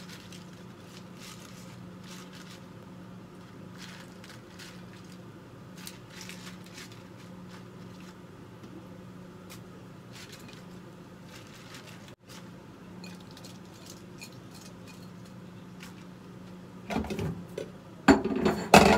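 Soft rustling as komatsuna greens are lifted from a bowl and laid into a pan, over a steady low hum. Near the end, dishes clatter loudly as the bowl is set down at the sink.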